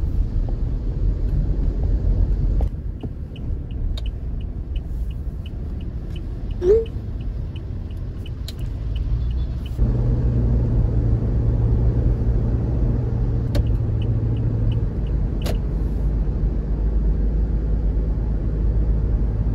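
Low steady road and engine rumble inside a moving car's cabin. For several seconds it carries a run of light, even ticks at about three a second, with a brief rising squeak about seven seconds in.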